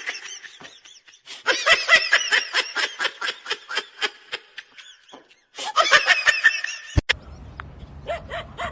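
A person laughing in runs of quick repeated bursts, with short breaks between the runs.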